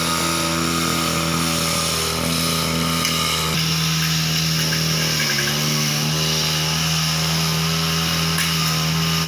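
Backpack brush cutter's small engine running steadily at high speed while cutting grass, its pitch dipping briefly about five seconds in.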